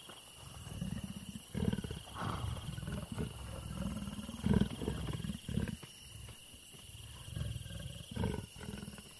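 Two leopards, a mother and her daughter, making low, pulsed rumbling calls in short repeated bouts while greeting each other affectionately.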